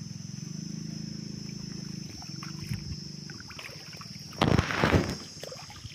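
Water splashing and streaming as a wet cast net is hauled up out of the water, about four seconds in, over a steady low droning hum and a thin, steady high-pitched whine.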